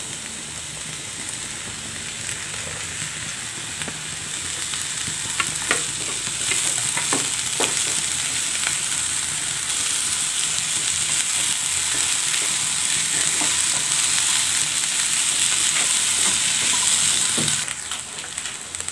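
Diced potatoes and carrots sizzling in hot oil in a kadai as they are stirred with a spatula, with a few scrapes and knocks of the spatula against the pan. The sizzle grows louder after a few seconds and drops off just before the end.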